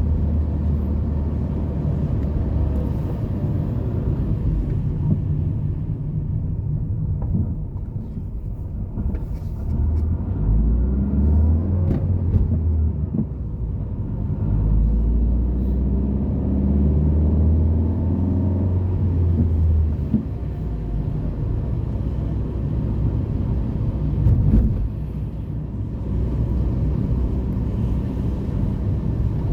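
Motor traffic: a continuous low rumble of car engines and tyres, with engine notes rising and falling in pitch as vehicles pick up speed partway through.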